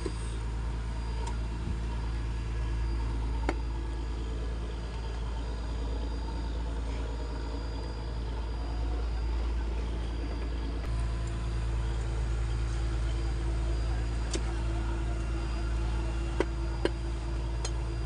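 Fishing boat's engine running with a steady low hum, and a few sharp chops of a cleaver cutting a fish on a wooden block, one early and several close together near the end.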